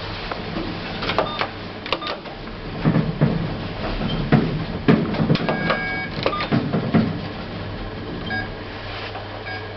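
Passenger lift in operation: a steady low machine hum with scattered clicks and knocks, and a few short electronic tones from the lift's signals.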